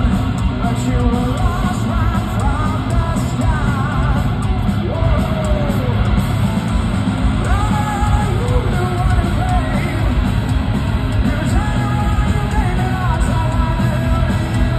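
Hard rock band playing live through a concert PA: distorted electric guitars, bass and drums, with a singing voice over them, heard from within the audience.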